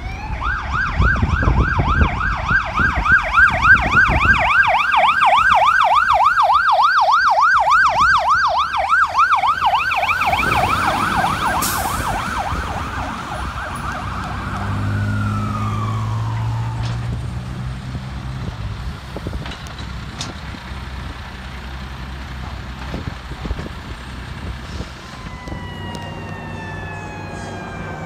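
A hazmat fire truck's siren on a fast yelp, warbling about four times a second, with the truck's engine rumbling low underneath as it pulls away. About ten seconds in the yelp stops and the tone slides down and fades. Near the end a siren is heard again, gliding down in pitch.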